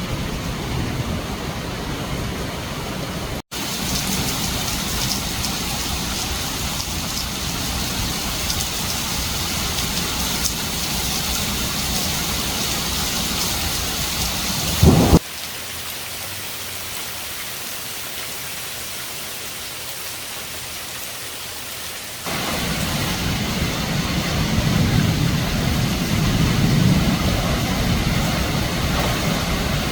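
Steady rain hiss. It cuts out for an instant early on, a short loud burst comes about halfway, and the rain then runs quieter for several seconds before rising again with a low rumble near the end.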